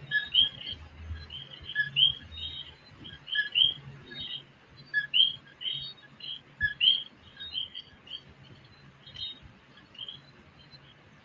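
Chorus of coquí frogs calling: many overlapping short chirps that sweep up in pitch, some led by a lower note, over a faint low hum.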